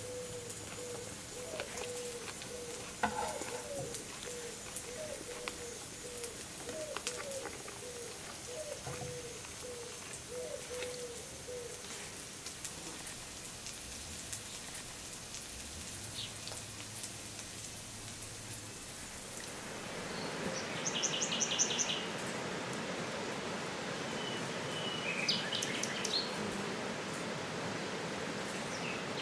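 Outdoor woodland ambience: birds chirping over a patter of small ticks and clicks. About two-thirds of the way in a steady rushing hiss comes up, with a quick high bird trill and more chirps over it.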